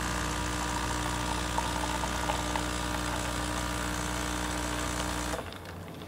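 Saeco Incanto Classic espresso machine's vibratory pump buzzing steadily as it pushes hot water through the tamped coffee in the brew group during extraction. It cuts off suddenly about five seconds in as the shot ends.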